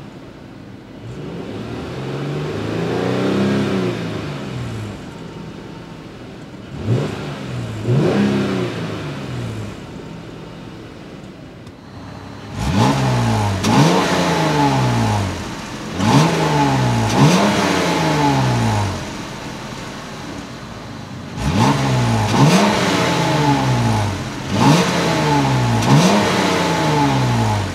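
2014 Jeep Cherokee Trailhawk's 3.2-litre Pentastar V6 revved in park through its dual exhaust. First comes one slow rev up and back down, then two short blips, then two runs of quick, sharp revs, each rising and falling back to idle.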